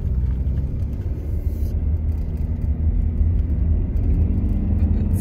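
Car engine pulling up a steep hill, a steady low rumble mixed with road and tyre noise, heard from inside the cabin.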